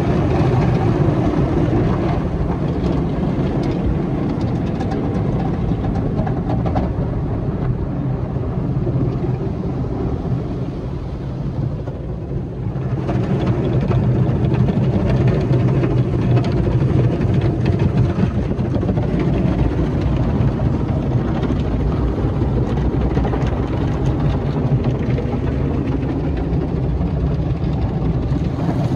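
Tunnel car wash heard from inside the car: wash brushes and water spray working over the body in a steady, loud rumble and swish. It eases about ten seconds in and picks up again a couple of seconds later.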